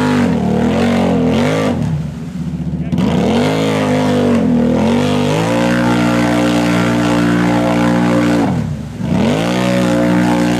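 ATV engine revving hard as its tires spin in deep mud, throwing up spray. The revs drop and climb back twice, and in between are held high and steady for about three seconds.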